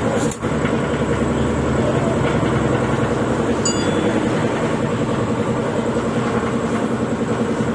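Motor scooter engine idling steadily.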